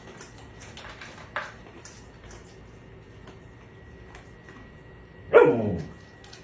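An animal's single loud cry about five seconds in, sliding down in pitch over half a second, after a quiet stretch with a few faint clicks.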